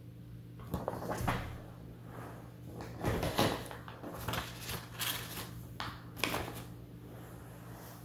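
Irregular rustling and handling noises, a run of scrapes and a few sharp knocks, from paper notes being put down and a canvas jacket and knit scarf being moved.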